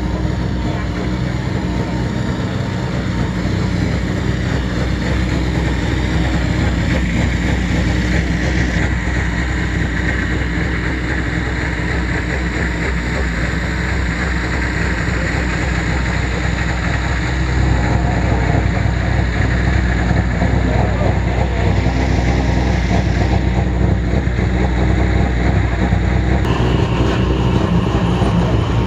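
Rally car engine idling steadily, growing louder about two-thirds of the way through.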